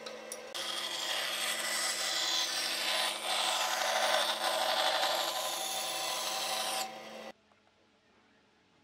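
Band saw cutting through a pine board: the blade's rasping cut over the steady hum of the motor. About seven seconds in it cuts off suddenly, leaving near silence with faint ticks.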